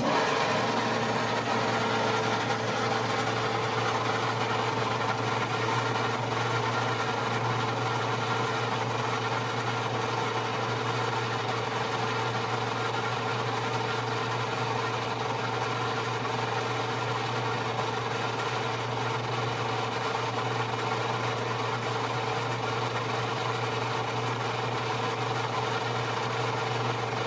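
Metal lathe running steadily at a reduced spindle speed, its motor and drive giving a constant hum as it turns a nylon bar in the chuck.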